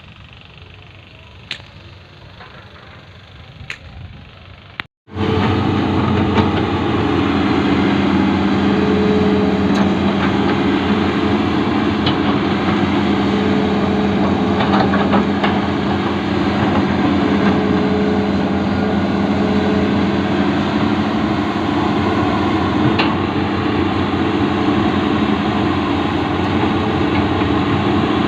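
A few sharp knocks over a quiet background. After a brief cut about five seconds in, a heavy diesel excavator engine runs loudly and steadily with a constant hum.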